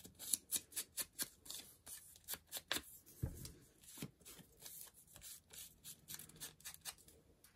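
Paper and card being handled on a craft table: a run of light, irregular clicks and crinkles, a few a second.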